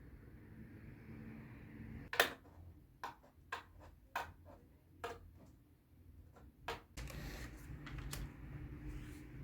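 A scatter of light clicks and taps at uneven intervals, the loudest about two seconds in, then a soft rustling from about seven seconds in.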